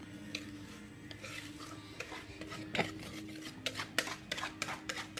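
A utensil scraping and knocking against a mixing bowl and cake pan while cake batter is poured and scraped out. It starts with a few scattered clicks, then comes as a quicker run of sharp taps and scrapes from about two seconds in.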